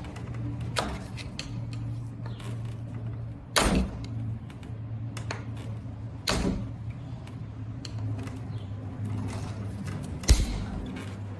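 Four sharp snaps and clanks, the last the loudest, as the old Segway Max Plus solid tire's rubber and embedded steel wire bands are being cut through to get it off the wheel. A steady low hum runs underneath.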